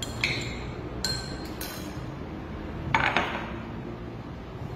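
Glassware clinking on a tabletop: small glass clinks and taps as metal probe clips and beakers knock against a glass dish. There are about five light clinks, some briefly ringing, in the first two seconds, then one louder knock about three seconds in.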